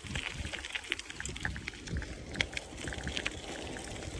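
Irregular crunches and clicks of movement along a gravel and dirt trail, over a low rumble of handling noise on the microphone.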